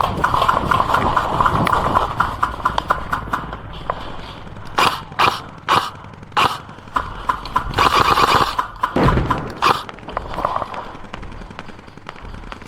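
Airsoft electric guns (AEGs) firing: a rapid rattling burst in the first couple of seconds, several separate sharp single shots in the middle, and another rapid burst about eight seconds in.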